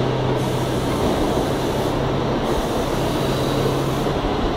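Steady machinery noise with a low hum, which stops about four seconds in.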